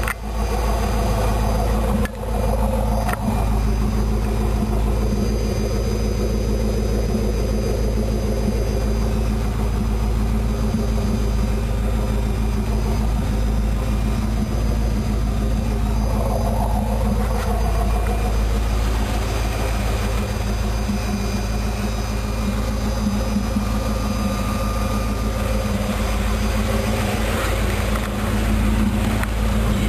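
Pontiac Trans Am's LS1 V8 running steadily, with a thin, steady high-pitched whine over the engine drone. The whine comes from the fuel pump at the rear, which the owner takes for a failing pump.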